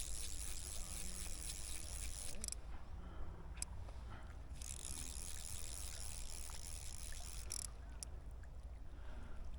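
Rushing river water with a steady low rumble of wind on the microphone. Twice a louder hissing rush of water starts and cuts off abruptly, the first for about two and a half seconds and the second for about three.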